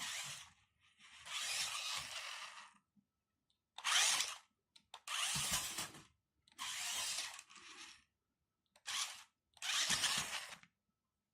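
Toy RC monster truck's small electric motor and gears whirring in seven short bursts, each stopping abruptly, as the throttle is pressed and released.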